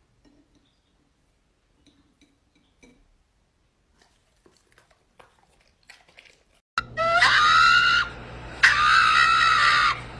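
A few faint ticks, then, about seven seconds in, a loud, high-pitched scream that starts with a quick rise in pitch. Two more held screams follow after short breaks, the last one near the end.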